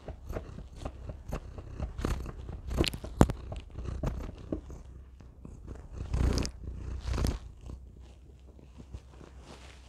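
Long-haired orange cat purring right against a tiny microphone: a low steady rumble overlaid with crackling and scratchy rubbing as its fur and whiskers brush the mic. Louder bumps come about three seconds in and again around six to seven seconds.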